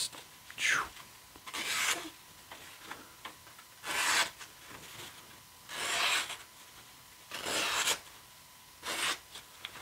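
Petrified Fish Beluga folding knife's factory edge slicing through brown paper in a paper-cutting sharpness test: six brief slicing strokes, spaced a second or two apart.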